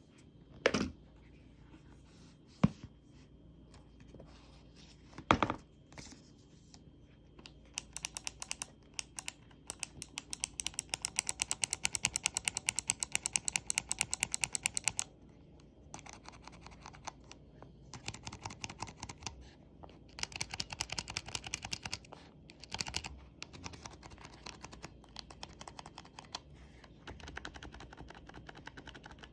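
Typing on mechanical keyboard switches of different kinds (clicky, tactile, linear), in runs of rapid keystrokes. A few separate loud knocks come in the first six seconds. The loudest, most even run of crisp clicks is from about eight to fifteen seconds in, and softer runs follow.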